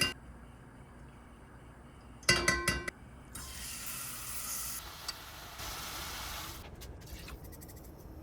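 Tableware clinking several times with a short ring, then a steady hiss for about three seconds.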